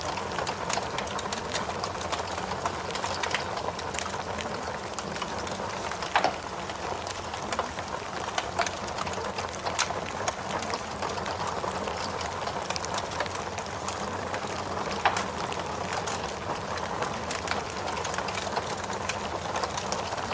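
Recorded forest rain ambience mixed with a crackling fire: a steady hiss of rain under scattered pops and crackles, with two louder pops about six seconds in and about fifteen seconds in.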